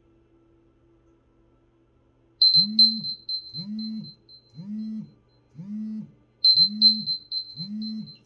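A timer alarm going off after about two seconds of quiet: high beeps in two bursts about four seconds apart, each starting loud and fading, over a low buzz pulsing about once a second. It signals that the ice-bath goal time is reached.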